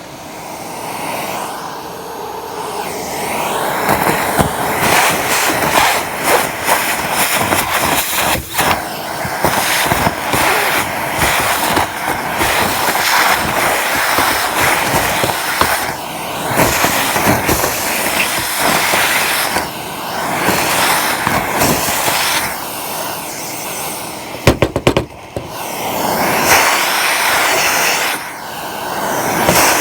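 Gutter vacuum running loudly with a steady rush of air, broken by many sharp clicks and rattles as material is sucked through, with a dense burst of them about 25 seconds in.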